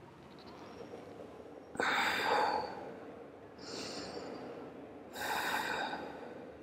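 A woman's audible breathing during a yoga stretch: three deep breaths, the first and last strong and the middle one softer.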